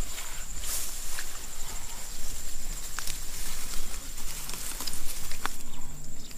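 Scattered small wet squelches, pats and clicks of hands working mud and water in a shallow muddy ditch, over a steady high-pitched whine.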